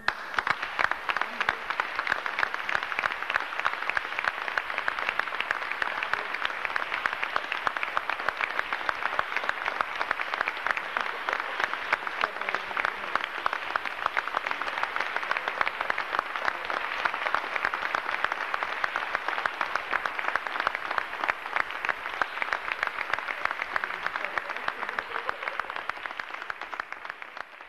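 Audience applauding, a dense even clapping that starts right after the last note of the flute and guitar piece and fades out near the end.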